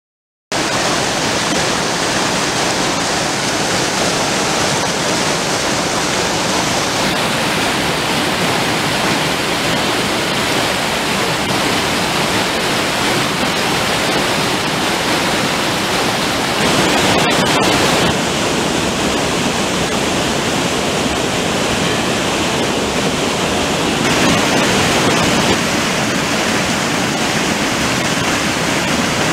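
Steady, loud rush of water from a rain-swollen stream pouring over a small waterfall and rocks. The sound starts about half a second in and changes character abruptly a few times.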